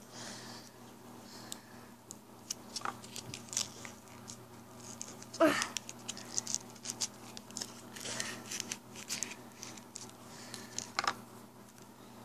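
A small plastic toy figure and its clear plastic packaging being handled: scattered light scratches, taps and rustles, with a louder rustle about five and a half seconds in and another near eleven seconds.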